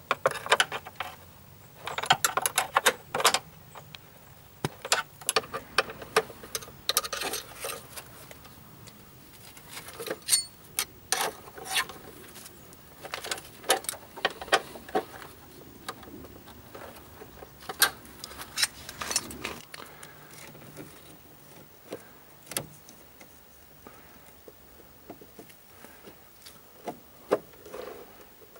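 Hand tools clinking and clattering against metal and plastic parts: irregular clicks and rattles of an open-ended spanner and screwdriver working fasteners under a car's wheel arch, thinning out after about twenty seconds.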